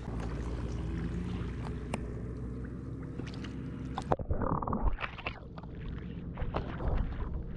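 Steady wind rumble on the microphone. About four seconds in, the sound turns suddenly muffled, with sloshing and splashing of shallow, muddy, flooded paddy-field water right at the microphone.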